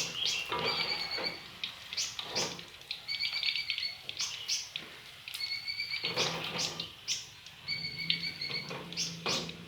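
A high chirping call repeated about every two seconds, each call lasting about a second, with a few short clatters between.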